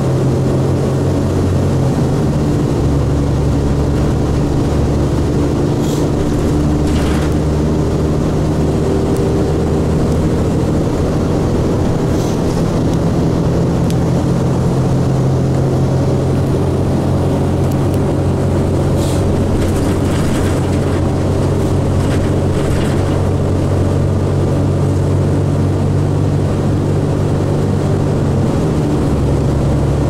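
Cummins ISC diesel engine of a 2002 Blue Bird 40 ft transit bus running, heard from inside the passenger cabin as a steady drone whose pitch steps about two and a half seconds in and again near the end. A few brief rattles or clicks break in over it.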